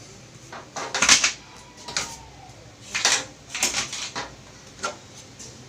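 Knocks and clacks of a mixer grinder being handled while it is taken apart: its motor and housing parts are moved and set down. There are half a dozen separate sharp strikes, about a second apart, with a short cluster a little past the middle.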